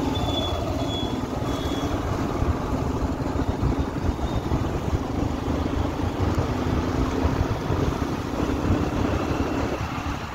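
Motorbike riding along a road: wind buffeting the microphone over a steady engine drone. A few short high beeps sound in the first second or two.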